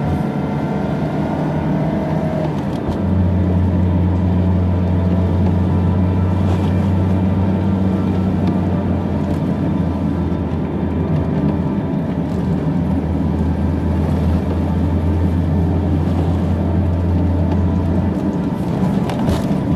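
Car engine and road noise heard inside the cabin while driving: a steady low drone that gets louder about three seconds in and drops back near the end.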